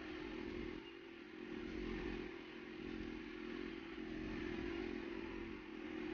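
Steady low hum of a running motor in the background.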